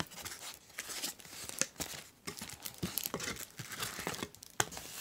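Plastic packaging crinkling and rustling in irregular bursts of short crackles as a hand handles bagged playing-card decks in a cardboard mailing box.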